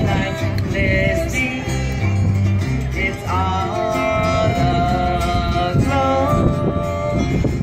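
Music: a country-style song with acoustic guitar accompaniment and a bass line under a melody line that holds long notes in the middle.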